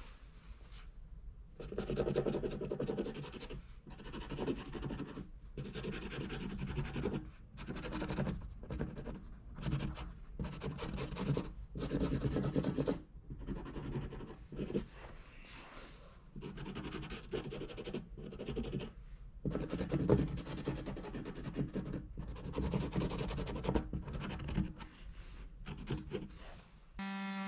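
Abrasive strokes rubbing and scraping over a welded patch on a polypropylene gas tank, smoothing the plastic weld down. Scratchy back-and-forth strokes come in runs with short pauses, starting about two seconds in.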